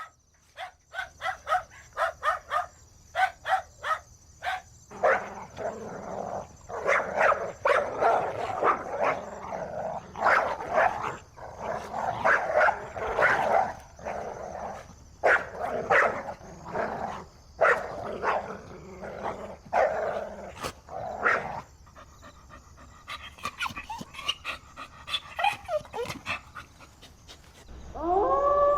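Dog barking over and over: a quick run of short, high yaps first, then louder, fuller barks about once a second, thinning to a few quieter yips and a falling whine near the end.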